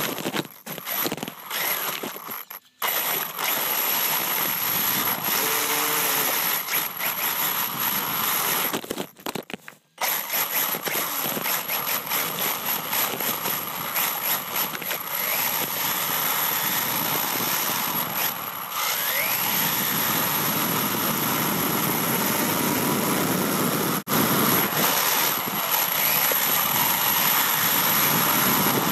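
HPI WR8 Flux brushless electric RC rally car driving fast on asphalt, heard from on its own chassis: motor and drivetrain whine mixed with tyre and chassis rattle noise, with a constant high whine. The noise cuts out briefly twice, near 3 seconds and near 10 seconds in.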